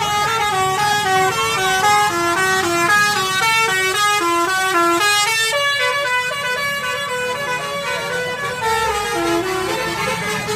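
A tour bus's telolet basuri musical horn playing a tune: several horn notes sounding together as chords and stepping from note to note about twice a second, over a low rumble.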